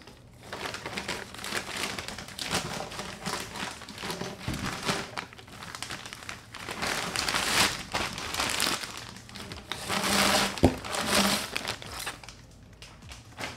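Thin plastic bag crinkling and rustling as a stainless exhaust pipe section is handled in it and pulled out. The crinkling is dense and irregular, grows louder in the second half, and has a single knock about ten and a half seconds in.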